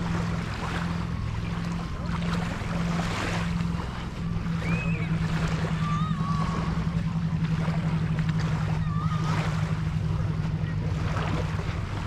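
Surf washing on the beach, with a low pulsing drone underneath that quickens about four seconds in.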